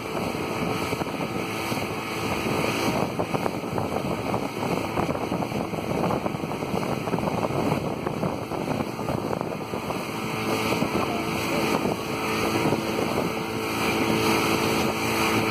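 Pontoon boat under way: its motor runs with a steady hum under a constant rush of wind and water, with wind buffeting the microphone.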